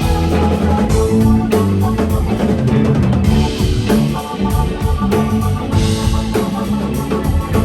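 Live jam band playing an instrumental passage, with drum kit and electric guitar over a steady beat.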